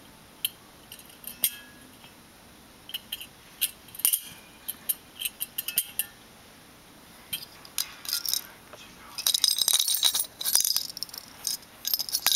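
A metal binder clip clinking and rattling as a rabbit nudges and tosses it, in scattered sharp, high-pitched clicks that grow into a dense flurry about three quarters of the way through.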